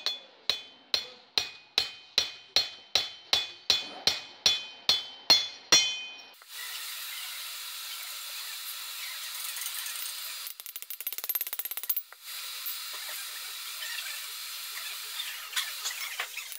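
A hammer strikes a guide mandrel to drive new valve guides into a heated aluminium cylinder head: about fifteen sharp metallic blows, roughly two and a half a second, each with a short ring, stopping about six seconds in. After that a steady hissing whir from an unseen shop machine carries on.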